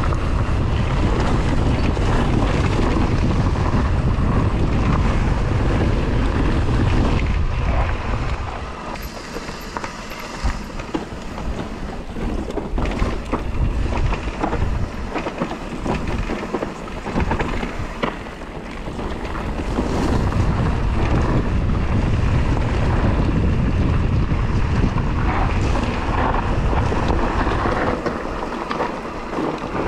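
Wind buffeting the action camera's microphone as an electric mountain bike rides a dirt forest trail, with tyre noise and short knocks and rattles from the bike over bumps. The wind rumble eases twice in the middle, when the bike slows.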